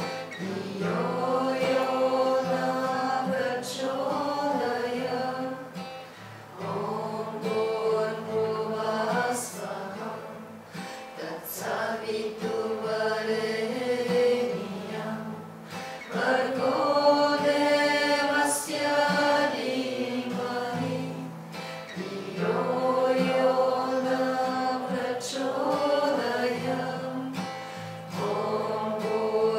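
A group of voices chanting a devotional mantra in unison to strummed acoustic guitar. The singing comes in phrases of several seconds, with held notes and short breaks between phrases.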